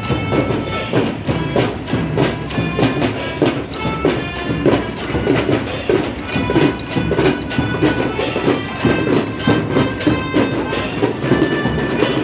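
School marching band playing as it marches: drums keep a steady march beat under a melody of held notes.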